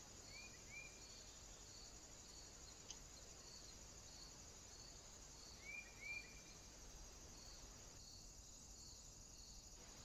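Faint, steady insect trilling, crickets or bush-crickets, pulsing about one and a half times a second. Two short double chirps from a small bird come about half a second in and again near six seconds, with a single faint click around three seconds.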